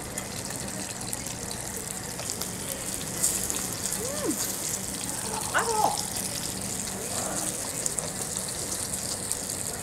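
Beef intestines (gopchang) and tripe sizzling on a hot tabletop grill pan, a steady hiss that grows brighter about three seconds in.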